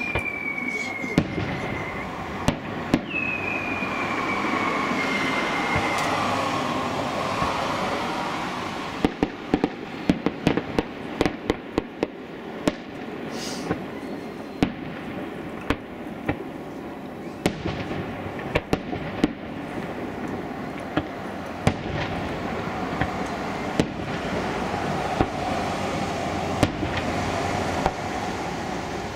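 Aerial fireworks display: shells bursting with bangs over a steady rumble. A whistle falls in pitch at the start and another about three seconds in, and a quick string of sharp cracks comes around the middle.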